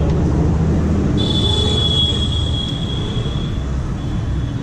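Steady low engine rumble of motor traffic in the background, with a thin, high-pitched squeal starting about a second in and fading out after about two seconds.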